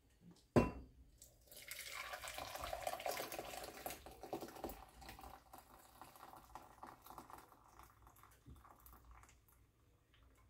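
Ginger and lemon tea poured from a stainless steel pot through a mesh strainer into a glass measuring cup: a splashing pour that builds over the first few seconds and then tapers to a trickle. A single sharp knock about half a second in, just before the pour begins.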